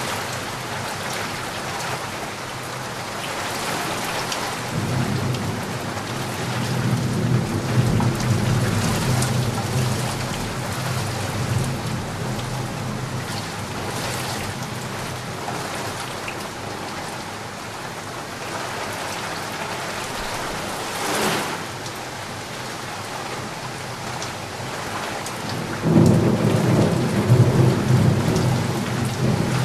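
Steady rain with thunder: a long low rumble rolls in about five seconds in and fades by about twelve seconds, and another starts suddenly near the end. A short sharp burst stands out about two-thirds of the way through.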